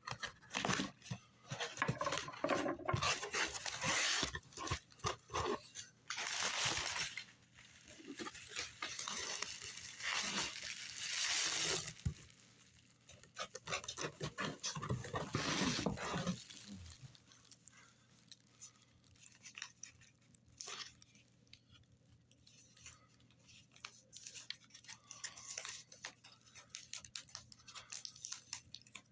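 A cardboard shipping package being opened and its packing handled: tearing, crinkling and scraping, busy for about the first sixteen seconds, then quieter, with scattered clicks and rustles.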